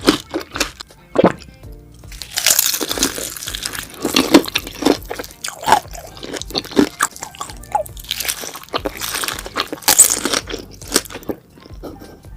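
Close-miked chewing and biting of beef large intestines: a string of crunchy, wet mouth sounds, densest about two seconds in and again near ten seconds. Soft background music runs underneath.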